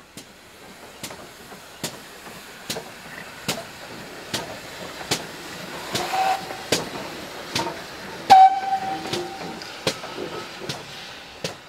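GWR 5101-class large prairie tank engine No. 4160 working slowly, its exhaust chuffing steadily about once every 0.8 seconds over a hiss of steam. A steam whistle sounds briefly about six seconds in, then gives a longer, louder blast about eight and a half seconds in.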